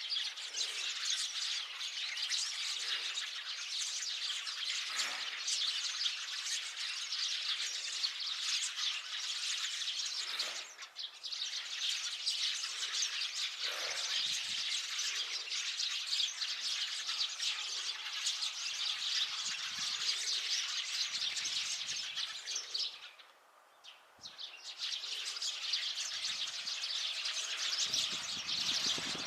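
A flock of Eurasian tree sparrows chirping all at once in a dense, continuous chatter. The chatter thins briefly about eleven seconds in and drops almost to nothing for about a second two-thirds of the way through, then resumes.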